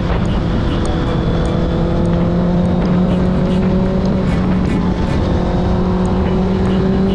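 Motorcycle engine running steadily under way, its pitch creeping slowly upward, over a constant rushing noise.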